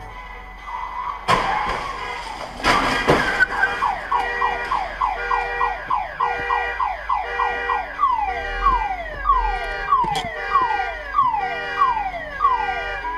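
Car crash: a sharp impact about a second in and a heavier crunch about three seconds in, then a car alarm going off, a run of repeated falling whoops that starts rapid and slows.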